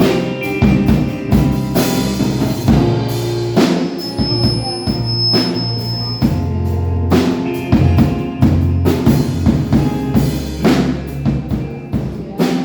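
A band playing with a full drum kit: frequent kick and snare hits over sustained bass and pitched instrument notes, with a final hit near the end.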